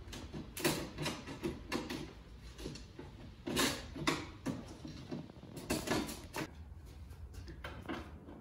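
A hand chisel or putty knife scraping and chipping old glazing putty out of a wooden window sash, in irregular short strokes.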